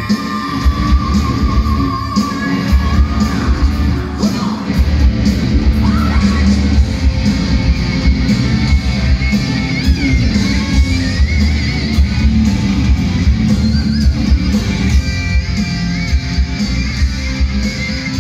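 Hard rock band playing live through a concert PA, loud: distorted electric guitars, bass and drums, with a singer, heard from the audience.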